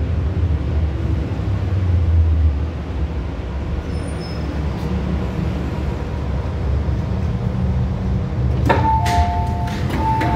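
Steady low rumble of an MTR M-Train heard from inside the car as it stops at a platform. Near the end come a few clicks, then the two-tone door chime, which sounds twice as the passenger doors slide open.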